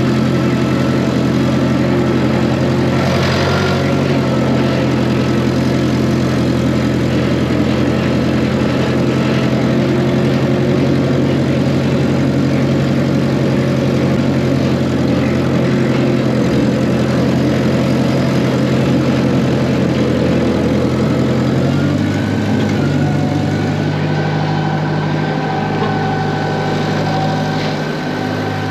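Wisconsin V4 engine of a Massey Ferguson MF711 skid steer running steadily while still cold, just after a cold start. Its note shifts and drops a little in loudness about three-quarters of the way through.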